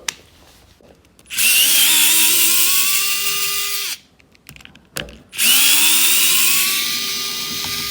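Cordless Milwaukee oscillating multi-tool run in two bursts of about three seconds each, each time winding up in pitch, holding steady and then spinning down, with light clicks between. It is the tool that has been cutting out even though the battery seemed full.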